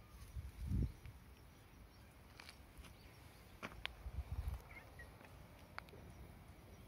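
Quiet outdoor ambience with a few soft low thuds from footsteps and a hand-held camera being moved, about a second in and again around four seconds in. Scattered light clicks and a couple of faint short chirps about five seconds in.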